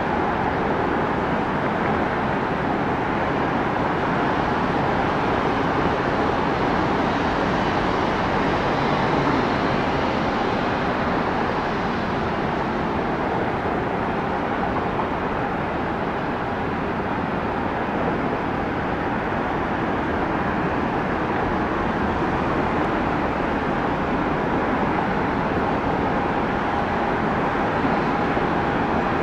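Steady, even engine noise with a faint whine over it.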